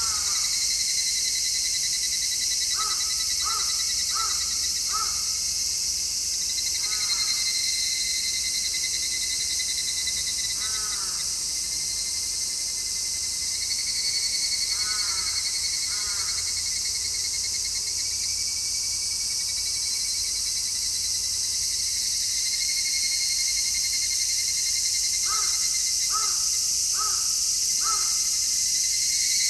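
A chorus of cicadas singing steadily, with a bird calling in short runs of repeated notes, four in a row about three seconds in and again near the end.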